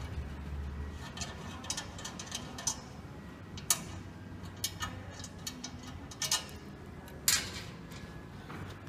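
Light metallic clicks and a few sharper clanks as a sheet-metal belt guard is handled and bolted on over an engine's belt drive, over a low steady hum.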